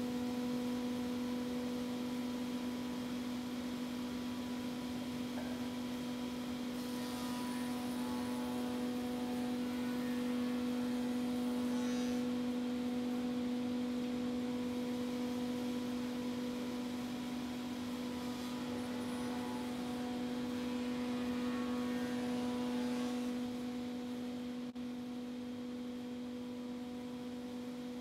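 Spindle moulder with power feeder running at a steady hum-like pitch while cutting the tongue on tongue-and-groove floorboards; the hiss of the cutter in the wood rises twice, about a quarter of the way in and again about three-quarters through.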